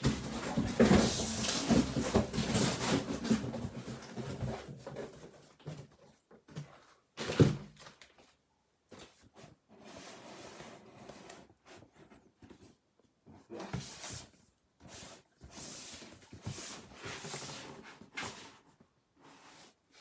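Handling noise: rustling and scraping, with one sharp knock about seven seconds in, then scattered quieter rustles with short pauses.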